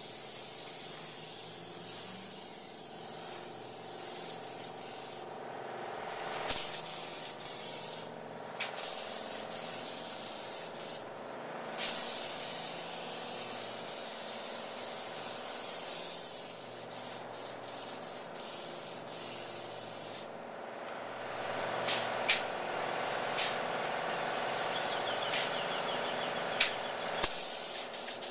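Polyurea spray gun hissing as it sprays coating, in long bursts that stop briefly four times, over a steady hum. A few sharp clicks stand out, two of them near the end.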